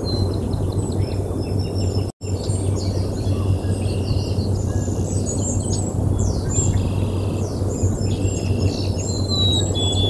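Small birds chirping on and off over a steady low rush of wind and a low steady hum. The sound cuts out completely for a split second about two seconds in.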